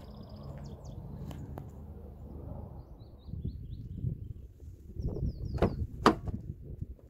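Rear passenger door of a Skoda Superb estate being opened: two sharp clicks near the end as the handle is pulled and the latch releases, the second the louder. Birds chirp briefly in the background.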